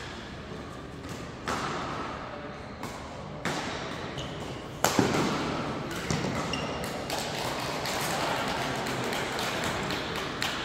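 Badminton rackets striking a shuttlecock during a doubles rally: a string of sharp hits at irregular intervals, the loudest about five seconds in.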